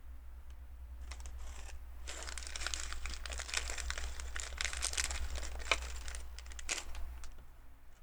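A thin plastic bag of LEGO pieces crinkling and rustling as it is handled and searched, with many small sharp clicks. The sound builds about two seconds in and eases off near the end.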